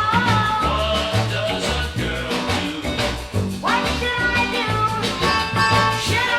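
Early-1960s pop song playing, with a steady beat and a bass line under sliding pitched lines.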